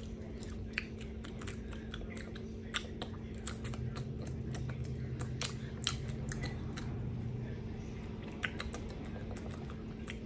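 A person chewing crunchy chocolate-and-cracker cookies close to the microphone: irregular crisp crunches, over a steady low hum.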